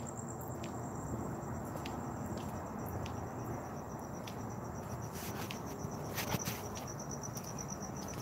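Crickets trilling steadily at night, a fast pulsing high-pitched chirr, with scattered sharp clicks and taps, a few of them together about five and six seconds in.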